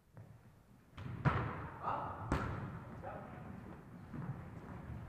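Two sharp impacts of a volleyball, about a second apart, during play.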